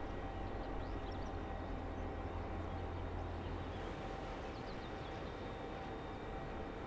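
Low rumble of a tugboat's and a cargo ship's diesel engines passing on the water, easing off about four seconds in, over a steady thin hum. A few faint, short, high bird chirps.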